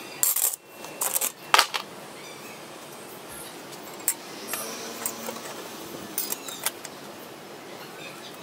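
Metal handling: a few sharp clanks and clinks in the first two seconds, then quieter handling with occasional light ticks as a steel ruler is laid across a circular saw blade.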